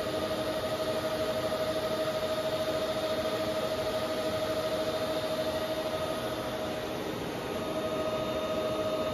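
TIG welding arc on exhaust header tubing: a steady hissing buzz with a constant mid-pitched hum, dipping briefly about seven seconds in.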